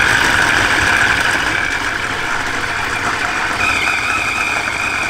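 Electric stainless-steel food chopper running, its blades mincing raw fish fillets into paste, with a steady motor whine. A higher whine joins about three and a half seconds in.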